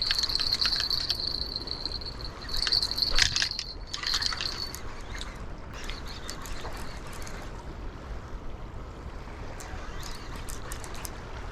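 Light splashing and trickling of water as a hooked flathead catfish is played in, with a steady high insect trill that stops about four and a half seconds in and a few sharp clicks around three seconds.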